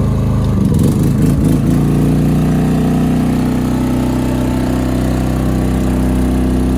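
maXpeedingrods 3500 W inverter generator engine running, revving up about a second in as an electric heater load is switched on, then running steadily at the higher speed under load.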